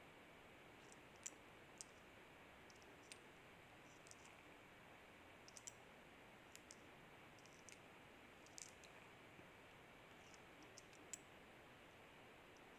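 Near silence with faint small clicks and ticks at irregular moments, from chicken drumsticks being handled and turned on a metal grill tray.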